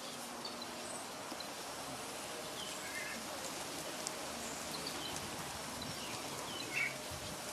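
Steady outdoor background hiss with a few short, faint bird chirps, the clearest about three seconds in and again near the end.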